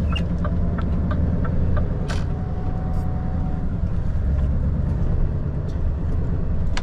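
Scania V8 truck engine running under load, a steady low rumble heard inside the cab. A run of quick light ticks in the first couple of seconds and a short hiss about two seconds in.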